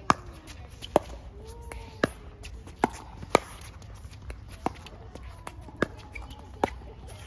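Pickleball paddles hitting a plastic pickleball in a rally: sharp pops roughly once a second, with a few quieter knocks between them.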